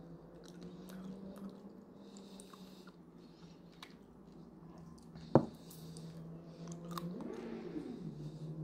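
A person chewing a piece of dried, seasoned fish snack, with soft wet mouth noises and one sharp click about five seconds in. A steady low hum runs underneath.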